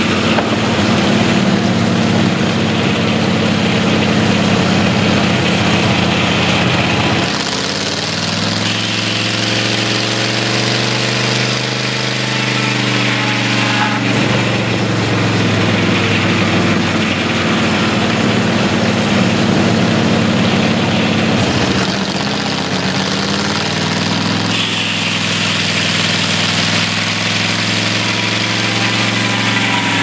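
Homemade circular-saw sawmill running: the engine that drives it runs steadily while the big blade rips through the log on the carriage, with a hissing cutting sound over the engine. The engine note shifts about a quarter of the way in, wavering for several seconds, and changes again about two-thirds of the way through.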